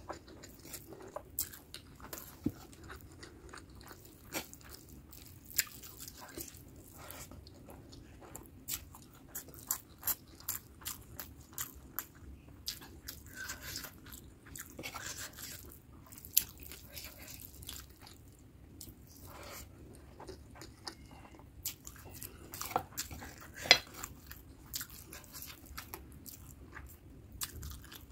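Close-miked chewing and mouth sounds of someone eating rice and mutton curry by hand, with many irregular sharp clicks and occasional crunches.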